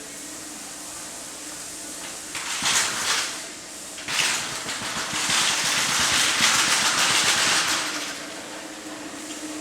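Two bursts of hissing spray, a short one followed by a longer one lasting about four seconds, over a steady machine hum.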